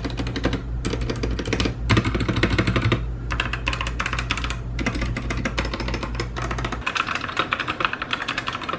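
Typing on a stock Womier WK61 60% mechanical keyboard, with its factory red Outemu linear switches and pudding keycaps: fast, continuous clacking keystrokes with a brief pause about three seconds in. The case has no dampening foam and is fairly hollow, and the factory-lubed stabilizers are a bit rattly.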